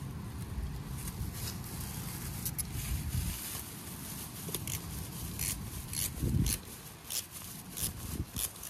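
Nut driver tightening the nut on a ground-rod clamp, with short, irregular metallic clicks and scrapes as the hands work. A low rumble runs underneath, and there is a dull bump about six seconds in.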